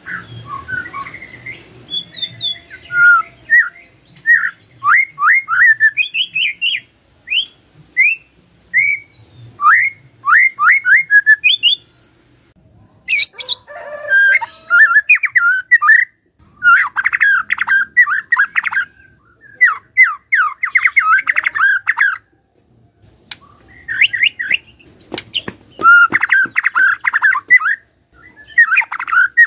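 White-rumped shama (murai batu) singing loudly: first a run of short, sharp notes sweeping downward, about two a second, then after a short pause dense, rapid warbling phrases with brief gaps between them. A few sharp clicks come in among the phrases.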